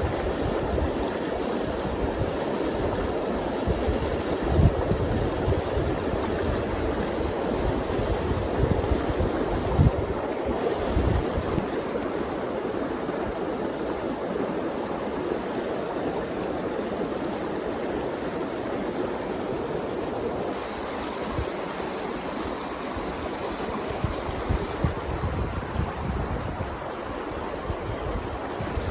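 River water running steadily, with gusts of wind buffeting the microphone now and then.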